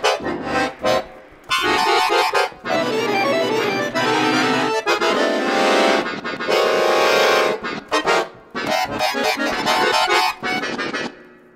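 Chromatic button accordion playing contemporary concert music: quick clusters of short notes and loud held chords, cut off abruptly several times and fading away near the end.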